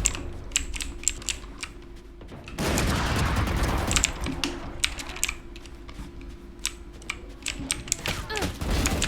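Keys of a Bajeal HJK901 mechanical keyboard clicking in quick, irregular presses during gameplay, with video-game gunfire behind them. A louder, denser burst comes in about two and a half seconds in and lasts over a second.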